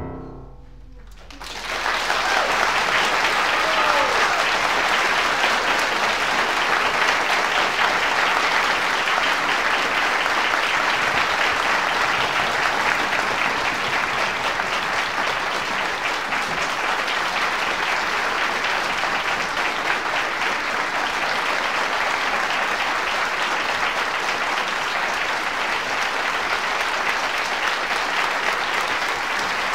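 An orchestral chord rings away in the hall, and about a second and a half in an audience starts applauding, a dense, steady clapping that carries on without a break.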